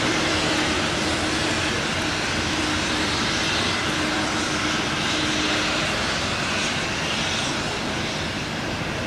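Train moving through a railway station: a steady rumbling hiss, with a faint hum that fades out about six seconds in.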